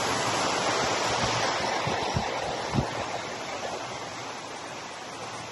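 Multnomah Falls: a steady rush of falling water, easing slightly toward the end. A few short low thumps come in the first three seconds.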